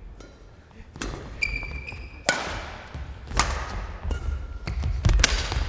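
Badminton rally: sharp cracks of a racket striking the shuttlecock, roughly a second apart and echoing in a large gym hall, with a short squeak of court shoes on the floor about one and a half seconds in.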